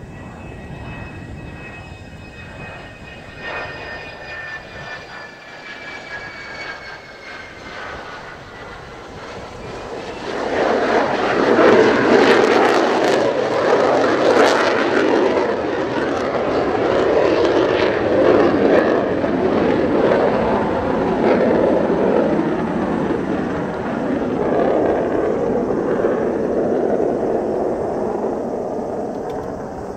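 Mitsubishi F-2 fighter's single F110 turbofan on a low approach. First a thin jet whine falls slowly in pitch as the jet comes in, then about ten seconds in a loud jet roar builds as it passes low and climbs away. The roar slowly fades near the end.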